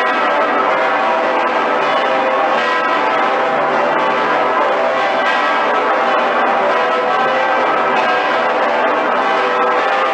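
Cologne Cathedral's church bells ringing in full peal: many large swinging bells, among them the great St. Peter's bell and Pretiosa, sounding together in a dense, continuous, overlapping clangour.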